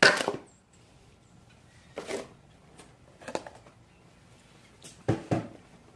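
Handling noises as the flashlight is taken out of the container it sat in for the test: four brief rustling, scraping bursts a second or so apart, the first and last the loudest.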